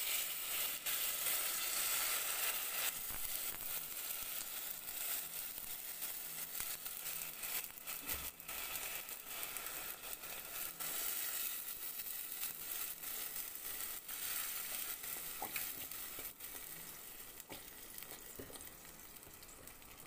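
Passata tomato sauce going into a hot pan of browned onion and garlic in olive oil: a loud sizzle that slowly dies down as the sauce settles, with a few clicks.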